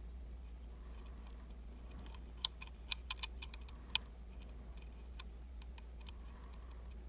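Small, sharp clicks and ticks of a lock pick and tension wrench working the pin stack of an Emhart Black Belt lock, with a quick cluster of louder clicks from about two and a half to four seconds in.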